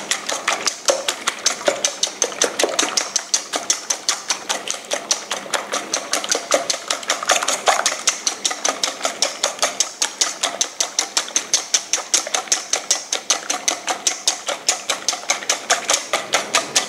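Wire whisk beating raw eggs in a stainless steel mixing bowl, its wires striking the metal in a fast, even rhythm of about five clicks a second.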